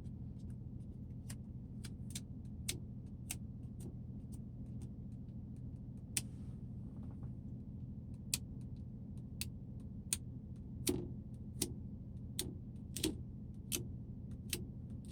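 Irregular light clicks and taps of small hard pieces, the phone and its tempered glass screen protector, being handled, over a steady low electrical hum.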